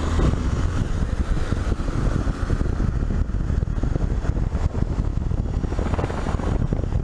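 Honda XRE 300's single-cylinder engine running as the motorcycle cruises down the road, with wind buffeting the rider-mounted microphone in an uneven low rumble.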